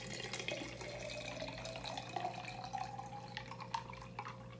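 Iced green tea pouring from a tall can into a glass mason jar: a steady trickle whose pitch rises as the jar fills, with a few drips near the end.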